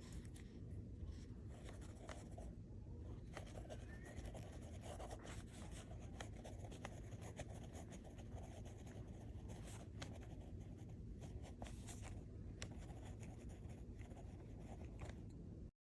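Pen writing on paper: faint, uneven scratching strokes over a low room hum, ending abruptly near the end.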